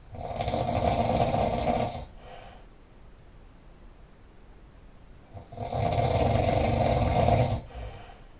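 Loud snoring: two long snores about three and a half seconds apart, each lasting about two seconds and trailing off into a brief, fainter sound.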